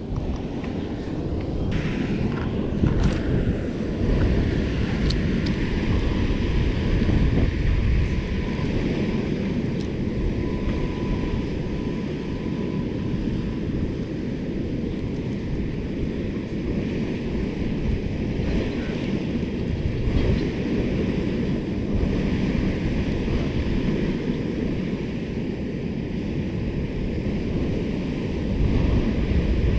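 Steady wind buffeting the microphone, with water lapping, a continuous low rumble throughout. A few small clicks and knocks come about two to three seconds in.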